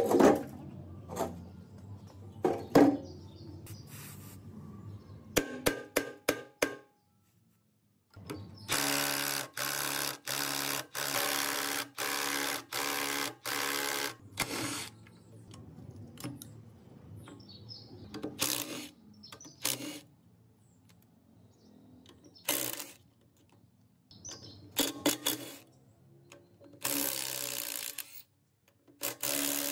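A small power tool's motor runs in a series of short bursts, about six in quick succession and two more near the end. Sharp clicks and knocks of metal parts being handled come in between.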